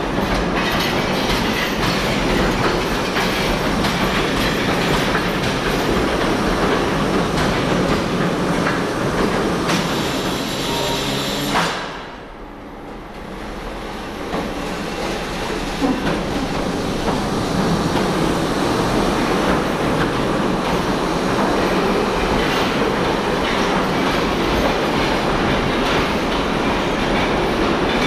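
Driverless electric Mail Rail trains on the Post Office Railway's 2-foot-gauge track running past the platform, with a steady rumble and clatter of wheels on rail. The sound drops away suddenly a little before halfway through and builds back up over a few seconds.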